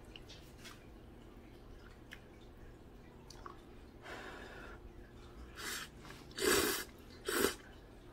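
Someone slurping Chapagetti noodles off chopsticks: four short slurps in the second half, the third the loudest. A few faint clicks of chopsticks and spoon against the steel pot come before them.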